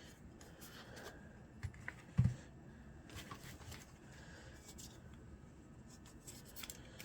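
Faint handling sounds from cleaning an SCCY CPX-2 pistol: light rubbing and scattered small clicks, with one short dull knock about two seconds in.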